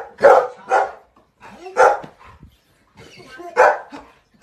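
Golden retriever barking four times: two quick barks at the start, another about a second later, and a last one near the end.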